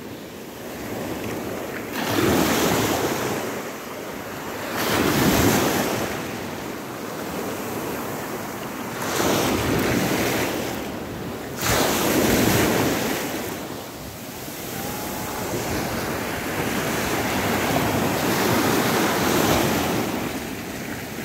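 Small sea waves breaking and washing up over a pebble shore, the surf swelling and falling every few seconds.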